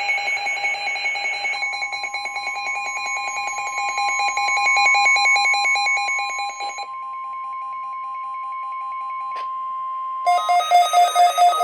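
NOAA Weather Radio 1050 Hz warning alert tone, one steady tone of about nine seconds that comes on about a second and a half in, signalling that a warning broadcast is about to follow. During its first few seconds it is overlapped by a rapidly pulsing electronic alarm beep, and near the end a different pulsing beep starts.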